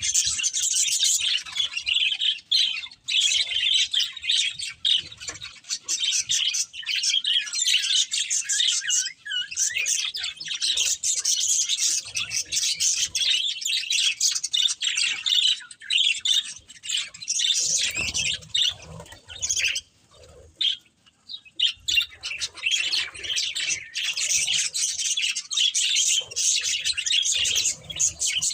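Budgerigars chattering, a dense flow of quick, high overlapping chirps and squawks, with a brief lull about two-thirds of the way through.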